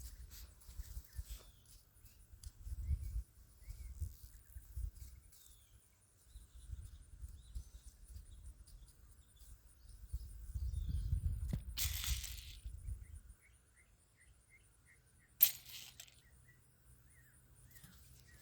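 Quiet outdoor garden sounds: low, uneven rumbling on the microphone, a bird chirping in a quick run of short notes, and two short sharp scraping noises in the second half.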